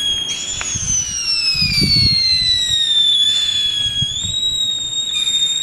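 Several whistling fireworks going at once: long, shrill whistles that slowly fall in pitch, a new one starting high about a third of a second in and sliding down over the next few seconds. A short burst of low rumbling noise comes about two seconds in.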